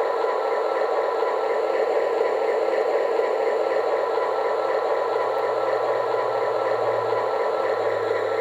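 Recorded diesel locomotive engine running steadily, a sound effect from a QSI Maxx Traxx sound unit played through a speaker on a resonator tube. A low hum swells slightly near the end.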